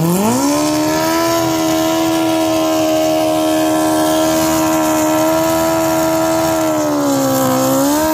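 A drag-racing sportbike's engine revs up and is held at steady high revs on the starting line, ready to launch. Near the end the revs dip slightly and rise again.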